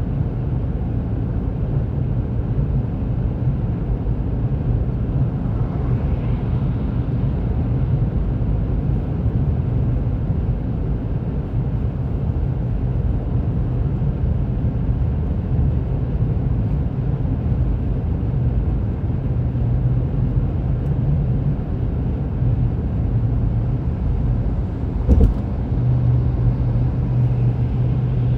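Steady road and engine rumble inside a moving car's cabin at highway speed, with one short knock near the end.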